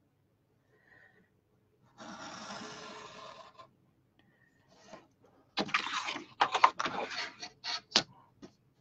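Craft knife drawn along a ruler, slicing through card in one steady scratchy stroke. A few seconds later comes a louder clatter of paper rustling and several sharp knocks as the card and plastic ruler are shifted on the cutting mat.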